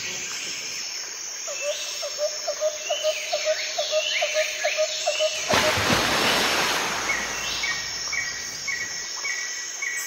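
Forest ambience of birds calling and insects chirping, with a rapid run of short chirps at about five a second for several seconds. About five and a half seconds in, a loud hiss starts suddenly and fades away over a couple of seconds.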